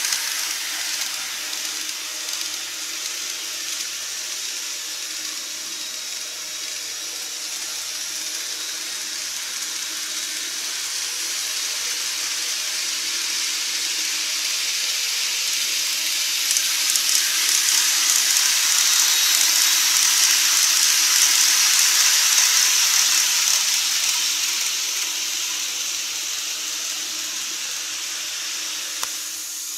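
KATO N-gauge model trains running on the track: a steady whirring hiss of motor and wheels, growing louder as a train approaches, loudest a little past the middle as it passes close, then fading away.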